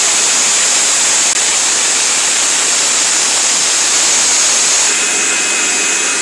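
Loud, steady hissing rush of blacksmith-shop equipment running, with a faint high whine joining about five seconds in.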